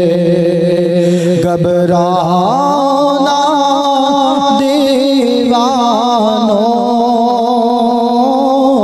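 A man singing an Urdu naat, a devotional song to the Prophet, through a microphone. He draws out long held notes that waver in ornamental runs, stepping up in pitch a couple of seconds in. Only the word 'ghabrana' is clear, partway through.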